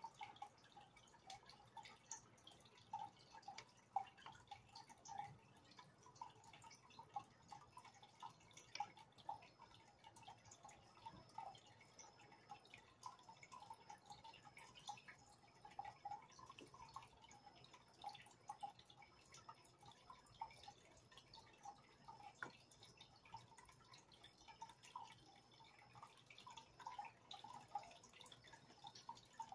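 Faint aquarium water sounds: a steady run of small, irregular drip-like plinks and bubbling from the tank.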